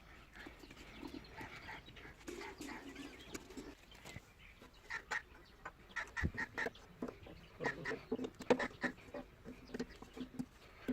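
Domestic fowl calling in many short, repeated calls, faint at first and busier and louder from about halfway through.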